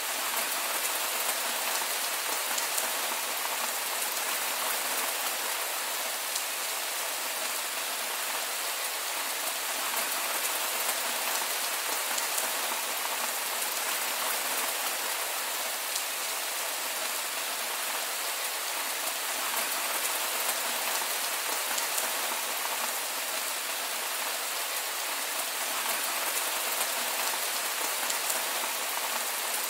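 Heavy rain falling steadily: an even, unbroken hiss with faint fine drop ticks and no thunder.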